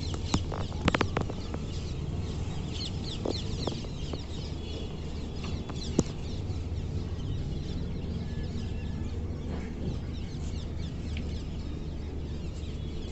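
Outdoor ambience of birds calling, with many short chirps over a steady low rumble. A few sharp knocks about a second in come from a hand handling the phone.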